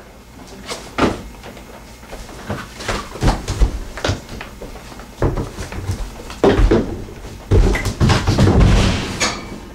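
Irregular knocks and heavy thumps of people moving about on a couch and floor, coming thicker and louder in the second half.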